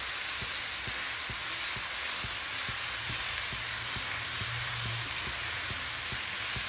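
Chopped onion, ginger, garlic and green chillies sizzling steadily as they fry in a non-stick pan, being browned, with a wooden spatula lightly scraping and knocking against the pan as they are stirred.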